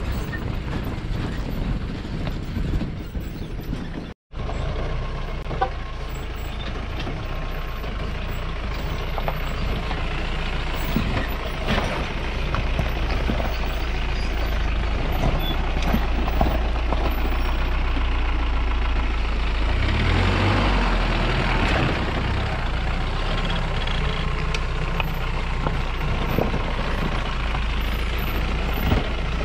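A modified Mahindra Bolero 4x4's engine pulls steadily up a rough off-road track, with scattered knocks and rattles. It swells louder for a couple of seconds about twenty seconds in. The sound cuts out for a moment about four seconds in.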